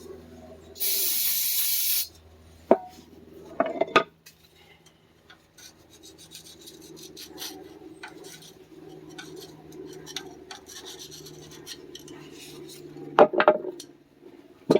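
Hands-on metal work at a tractor's front axle: a hiss lasting about a second, then sharp metal clanks a few times, with scraping and rubbing between them.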